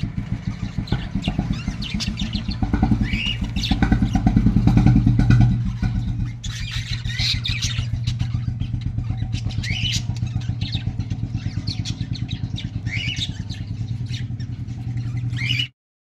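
An engine running steadily with a low, pulsing rumble, louder for a couple of seconds about four seconds in. Over it come short chirps from budgerigars every few seconds. All of it cuts off just before the end.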